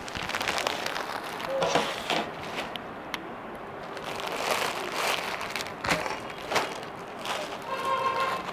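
Clear plastic saree packaging crinkling and rustling with scattered clicks, as sarees are handled, unwrapped and taken out of their plastic covers.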